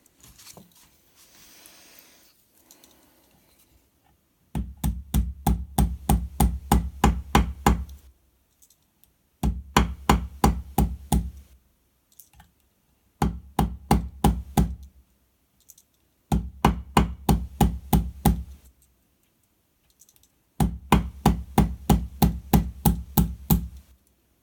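A hammer tapping on a crooked Swiss Army knife blade to straighten it. The taps come in five runs of about four a second, each run a few seconds long with short pauses between.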